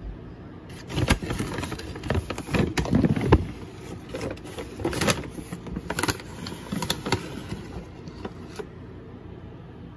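Handling noise over a bowl of flour: irregular rustling with scattered sharp taps and knocks, starting about a second in and stopping near the end.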